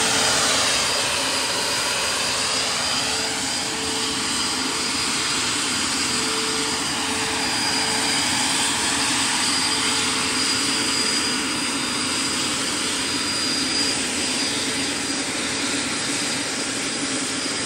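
Radio-controlled scale MD 600N helicopter in flight: its model turbine engine and electric ducted fan run with a steady high-pitched whine over a dense rush of air. The ducted fan is throttled back to cut its current draw.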